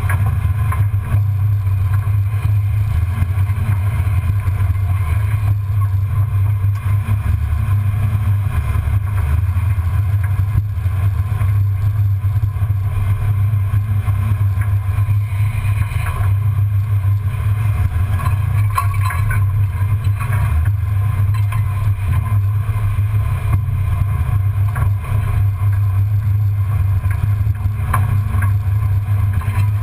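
1994 Ford Bronco's engine and exhaust running steadily at low speed, heard from beneath the chassis as a loud, even deep drone, with a few faint knocks now and then.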